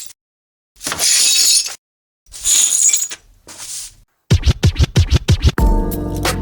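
Glass smashing: two bursts of shattering about a second long each, then a smaller crash. About four seconds in, electronic music starts with a rapid run of hits, then a steady bass and sustained notes.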